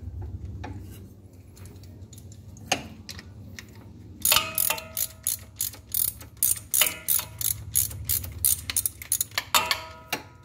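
Socket ratchet clicking in quick runs from about four seconds in, some clicks with a short metallic ring, as the nut on the water pump impeller shaft is worked off. A low steady hum runs underneath.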